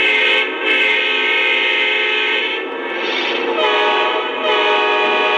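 Lionel Amtrak Acela model's onboard sound system sounding one of its five selectable train horns: a series of loud chord-like horn blasts with brief breaks between them, the last held steady.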